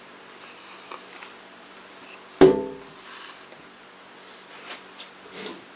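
Tool and hand handling at a table saw motor during soldering work on its start-capacitor wiring: one sharp knock about halfway through that rings briefly with a pitched tone and dies away within half a second. Faint small clicks come before and after it, over a faint steady hum.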